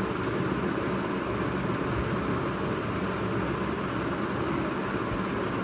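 Steady rain falling outside, a continuous even wash of noise.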